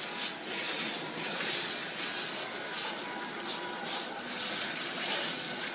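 Water running steadily in a continuous stream.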